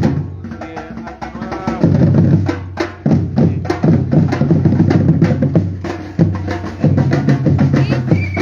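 Batucada percussion ensemble playing a dense drum rhythm: deep bass drums under sharp, quick hand-drum and wood-block-like strikes. The low drums drop out briefly about a second in, then come back in.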